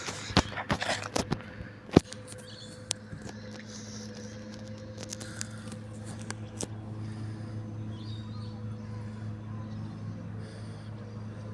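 A run of knocks and clatter, the loudest about two seconds in, then a garbage truck's engine running steadily with a low hum.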